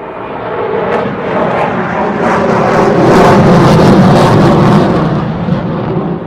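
Jet airplane passing overhead: a loud jet engine noise that builds to its peak about three to four seconds in, then starts to fade.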